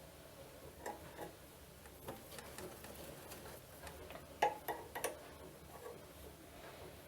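A few scattered light clicks and taps of handling in a workshop, the loudest a small cluster about four and a half seconds in, over quiet room tone; no machine is running.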